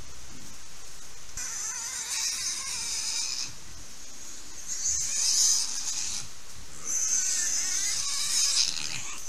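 Wild boar piglets squealing in three bouts of a second or two each.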